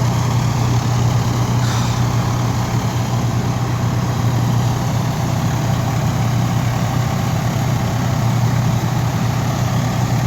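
Diesel engine of a parked fire truck idling steadily, an even low hum.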